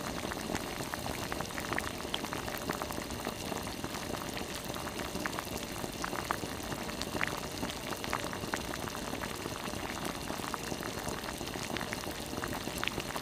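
Braised gizzard shad simmering in a pot: the red seasoned broth bubbling steadily, with many small pops and crackles.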